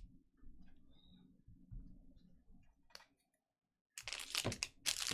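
Faint rustling of trading cards being handled, with a single click about three seconds in. From about four seconds in comes loud crinkling of a trading-card pack wrapper.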